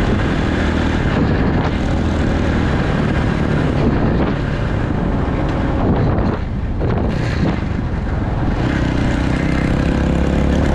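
Dirt bike engine running under way, steady and loud, with its note dropping briefly a little after six seconds in before picking up again.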